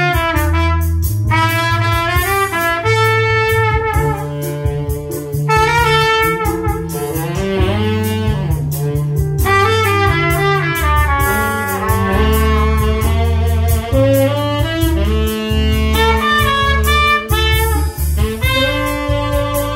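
Trumpet playing a jazz melody over an accompaniment with a steady bass line.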